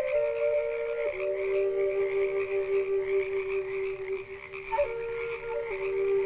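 A frog croaking on and on at night, over slow flute music holding long notes that step down in pitch.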